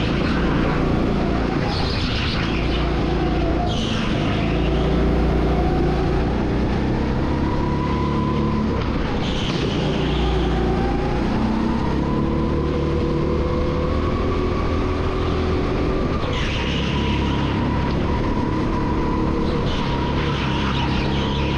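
Go-kart engine running hard on an indoor track, its pitch rising and falling with the throttle through the laps. About six short bursts of tyre squeal come as the kart slides through the corners.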